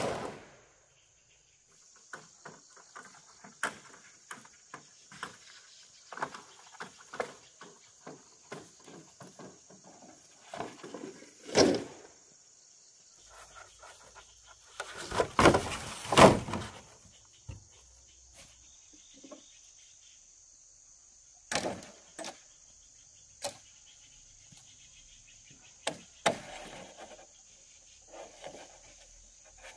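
Green bamboo poles knocking and clattering as they are dropped and handled, with several louder knocks and a longer clatter about halfway through, amid footsteps and rustling in grass. A steady high insect drone runs underneath.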